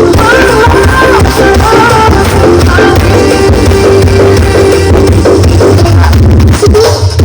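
Very loud music with heavy, steady bass blasting from a 'sound horeg' carnival sound system, a towering stack of speakers.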